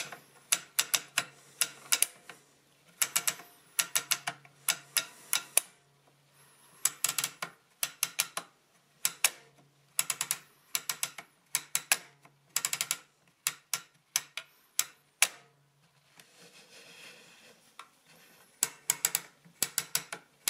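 Plastic digit wheels of an opened Schnellrechner (Addimat-type) mechanical adding machine turned by hand, giving quick runs of sharp ratchet clicks with short pauses between, and a longer pause about three-quarters through. The clicks come from the spring-loaded carry levers being pushed back by each wheel's cam and dropping to make the carry.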